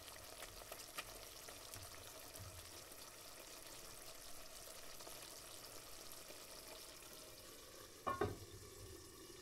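Faint, steady sizzling of food frying in a pan, with small crackles, and a brief louder clatter about eight seconds in.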